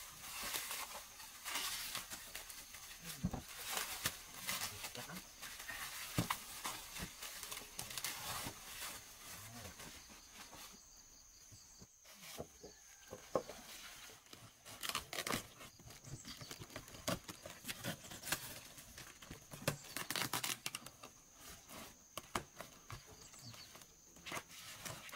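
Plastic packaging film rustling, crinkling and tearing as it is cut and pulled off stainless steel pots, then cardboard box flaps being cut and pulled open, in many short irregular strokes. A faint steady high tone runs underneath.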